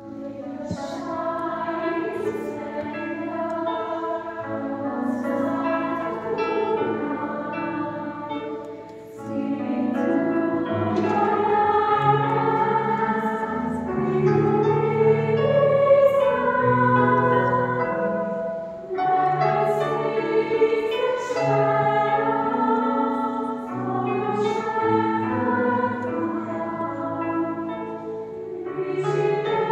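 Choir singing a Christmas carol in harmony, held notes with brief breaks between phrases about nine and nineteen seconds in, in a large church.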